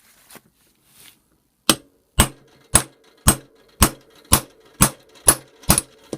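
Nine evenly spaced hammer blows on metal, about two a second, starting a little under two seconds in. Each blow is sharp, and a faint metallic ring hangs between them.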